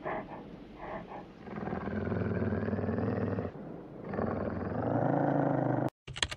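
Deep animal growls: after a quieter start, a long rough growl swells about a second and a half in, pauses briefly, and a second growl rises and cuts off suddenly near the end. A few sharp clicking taps follow right at the end.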